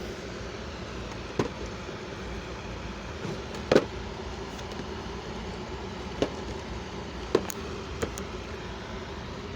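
Hard plastic action figure being handled: about six short, sharp clicks and taps, the loudest nearly four seconds in, over a steady background hum.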